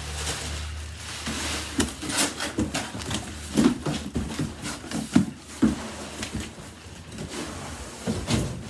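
Cardboard box and packing being handled: a run of irregular knocks, bumps and scrapes. A low hum stops about a second in.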